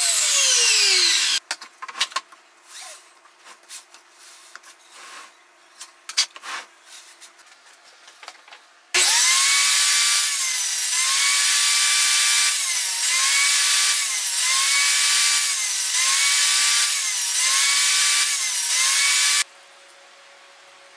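Table saw blade spinning down with a falling pitch, then light knocks and clicks of wood being handled. About nine seconds in, the saw runs again and its pitch dips about once a second as the blade bites into a series of repeated cuts in the workpiece. Near the end it stops abruptly.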